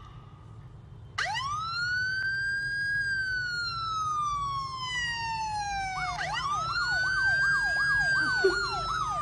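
Electronic police-style siren. About a second in, a wail rises quickly and then falls slowly over several seconds. About six seconds in it rises again, with a fast yelp sweeping up and down over it at roughly two to three sweeps a second.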